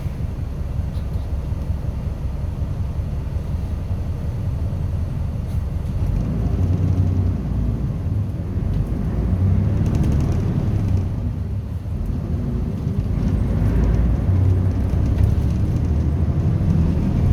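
Low vehicle rumble heard from inside a bus, swelling and easing several times.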